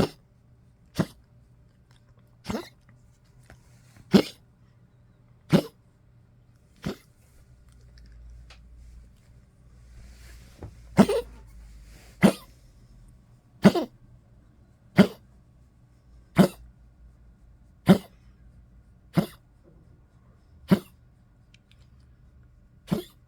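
An old poodle coughing over and over, one short cough about every second and a half, with a pause of a few seconds partway through.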